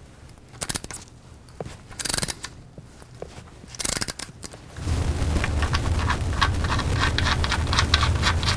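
A 1/2-13 tap cutting threads in a steel bolt hole, driven by a drill. First come a few scrapes and clicks. About five seconds in, the drill starts running steadily with a low hum and rapid clicking as the tap cuts.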